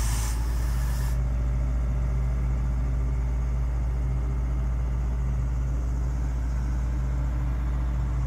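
Engine-driven site machinery, the mobile air compressor and hydraulic power pack for the fiber-blowing machine, running steadily with a low drone. A high hiss stops abruptly about a second in.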